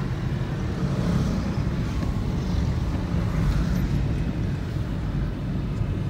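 Steady low rumble of a moving car heard from inside its cabin, with the engine and road noise running evenly.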